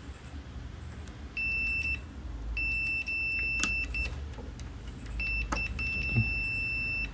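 Multimeter continuity buzzer sounding a steady high-pitched beep four times, short and long, as an IRF740 MOSFET from the inverter's H-bridge is probed, with a couple of sharp clicks: the beep shows the MOSFET is shorted.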